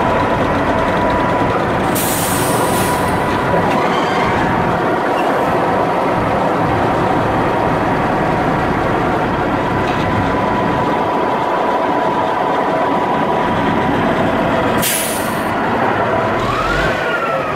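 CAT 621F wheel tractor-scraper's diesel engine running steadily at idle, with a constant whine over the engine noise. Two short hisses, about two seconds in and again near the end, and a brief rising then falling whine just before the end.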